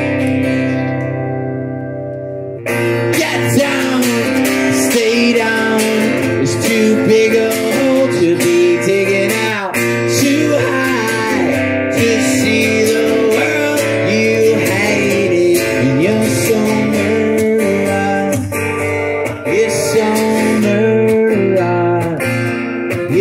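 Solo acoustic guitar with a male voice singing. A chord rings out and fades for the first two and a half seconds, then steady strumming and singing resume.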